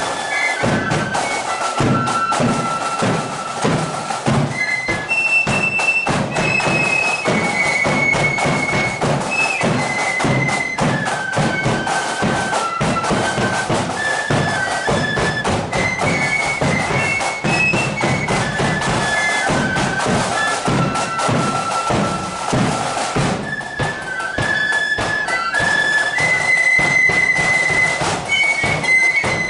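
Marching flute band playing a tune: a massed line of flutes carries a shrill melody over the steady beat of the band's drums.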